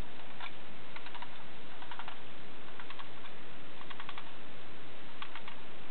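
Clockwork spring of a tin wind-up toy car being wound by hand: short clusters of ratchet clicks about once a second, over a steady hiss.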